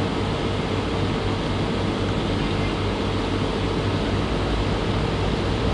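Steady background hiss with a faint low electrical hum underneath, even throughout, with no speech.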